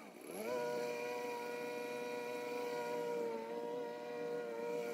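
Petrol lawnmower engine running steadily. Its pitch dips sharply and climbs back within the first half second.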